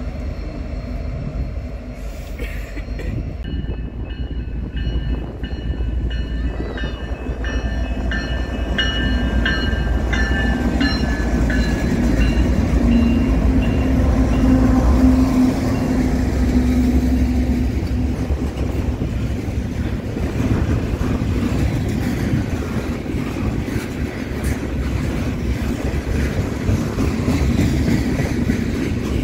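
BNSF freight train rolling past, a continuous low rumble of locomotive and freight cars on the rails. A high steady whine sounds over it from a few seconds in and fades out by about twelve seconds.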